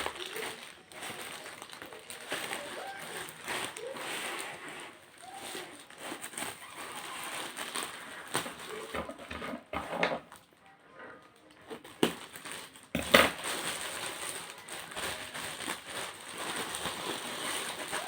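Crinkling and rustling of a parcel's packaging as it is handled and opened, with scattered clicks and a sharp knock near the end.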